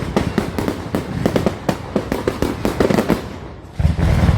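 Fireworks going off in a rapid run of sharp cracks and pops, several a second, thinning out after about three seconds, followed near the end by a loud low rumble.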